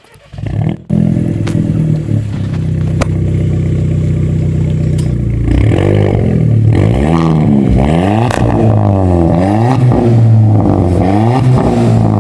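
Volkswagen Polo GT TSI turbo-petrol engine with an aftermarket exhaust, started up: it cranks and catches within the first second, then idles steadily. From about halfway it is revved again and again in short throttle blips, the exhaust note rising and falling with each.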